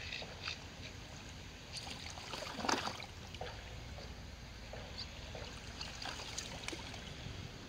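Faint waterside ambience: a steady low rumble with light lapping and trickling of water, and one brief louder noise about three seconds in.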